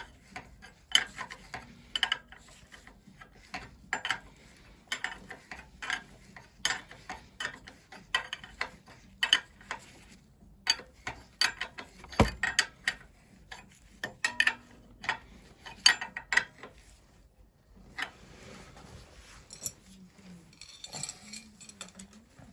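Hand tools working on metal engine fittings: irregular sharp metallic clicks and ticks, often several a second, with one heavier knock about twelve seconds in. The clicking stops about seventeen seconds in, leaving softer handling noise.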